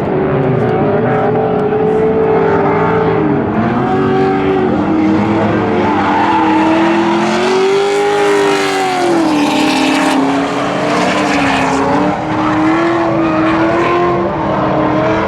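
Drift cars running a tandem battle: their engines rev up and down as the throttle is worked, two or more engine notes rising and falling at once. Tyre noise swells through the middle.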